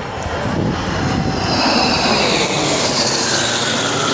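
Six Aero L-39 Albatros jet trainers flying over in close formation, their jet engines growing louder over the first second and a half and holding there. A high whine slides slowly down in pitch as they pass.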